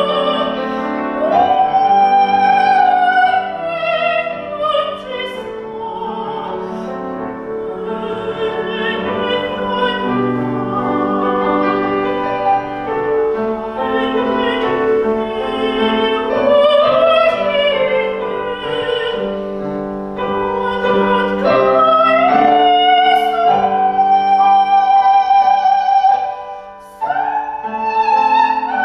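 A soprano singing a Korean art song in operatic style, with vibrato and long held high notes, accompanied by piano. Near the end the voice breaks off briefly and comes back on a high sustained note.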